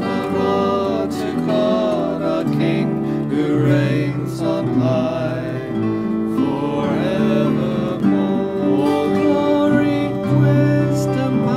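A hymn sung to acoustic guitar accompaniment, a steady congregational-style song.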